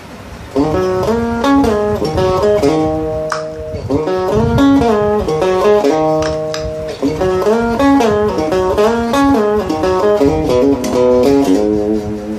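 Electric guitar played through a chain of BOSS effect pedals, picking a melodic single-note line. It starts about half a second in, with some notes held and a few short pauses.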